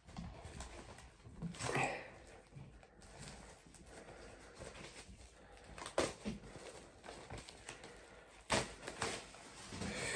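Quiet handling noises from box-set packaging and a vinyl record sleeve: scattered soft rustles with a few light knocks, the clearest about six seconds in and near the end.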